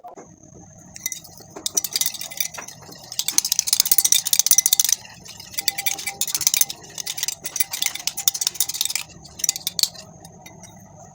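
A spoon stirring and scraping against a bowl in rapid strokes, in bursts with a short pause about halfway.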